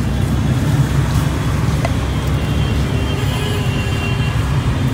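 Steady low rumble of road traffic with vehicle engines running close by, and a faint horn-like tone about three seconds in.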